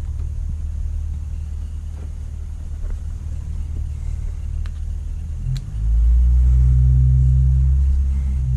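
Low steady rumble that grows louder about six seconds in, with a deep hum joining it.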